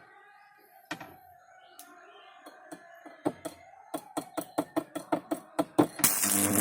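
Homemade welding machine's electrode sparking against metal: a run of sharp snapping clicks that come faster and faster, then a loud burst of crackling arc near the end.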